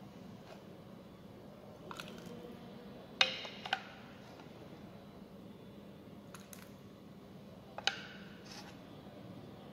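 A few sharp clinks of a metal ladle and crockery as soup is served into a ceramic soup cup, the loudest about three seconds in and another near the end, over a faint steady hum.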